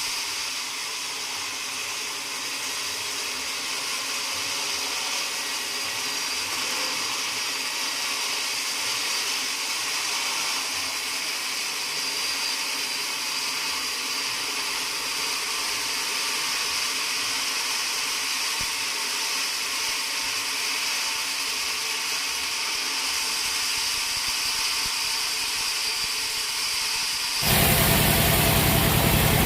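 Sawmill machinery running steadily, a hiss with a thin high whine. About 27 seconds in it changes abruptly to a louder, deeper machine sound with a low hum.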